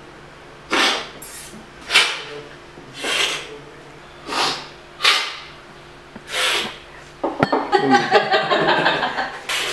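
Coffee tasters slurping brewed coffee hard off cupping spoons: six loud, hissing slurps roughly one a second, the slurp that sprays the coffee across the palate. A busier, continuous clatter takes over near the end.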